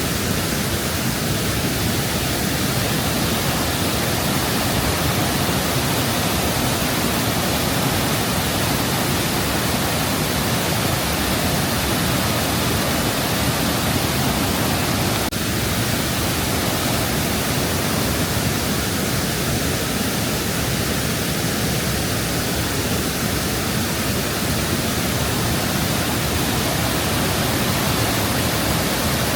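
Waterfall on the Krka River: water falling at close range, a loud, steady, even rush with no change.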